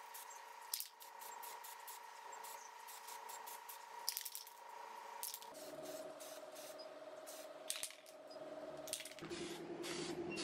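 Spray paint hissing onto a diecast model car body. A steady tone runs under the hiss and drops in pitch twice, about halfway and near the end, and many light clicks sound throughout.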